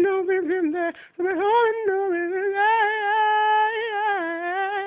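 A man singing unaccompanied, a wordless line of sung vowels. It breaks off briefly about a second in, then holds one long note near the middle.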